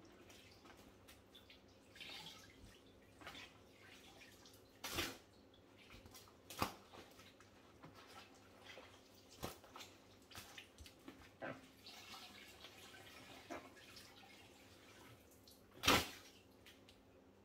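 Water dripping and splashing as flood water is worked up off a wooden floor by hand and into a mop bucket, with scattered knocks and clunks. The loudest knock comes near the end.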